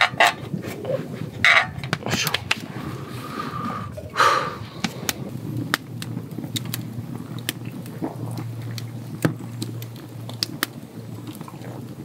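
Small wood campfire crackling, with scattered sharp pops. A few louder knocks and clatters in the first four seconds.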